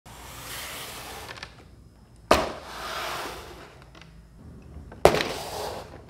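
Two sharp hits about three seconds apart, each trailing off in a hiss, with a similar swelling hiss before the first.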